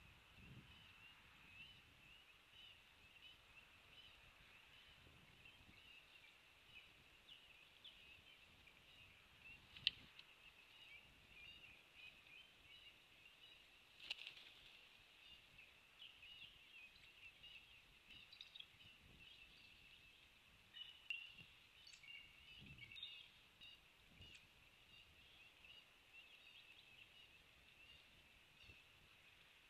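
Faint, steady outdoor chorus of high, rapid chirping that goes on without a break. A few short sharp clicks stand out, the loudest about ten seconds in and another about fourteen seconds in.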